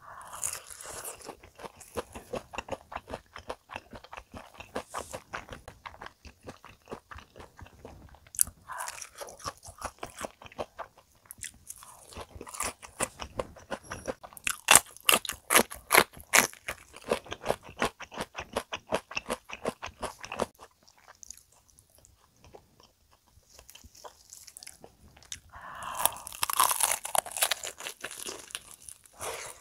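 Close-miked crunching and chewing of deep-fried menbosha (shrimp toast), with many crisp crackles in quick succession. After a quieter stretch about two-thirds through, there is loud crunching near the end as a piece of fried chicken is bitten into.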